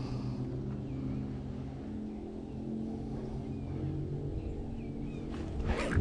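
An engine running steadily with a low, even drone, and a brief rushing noise near the end.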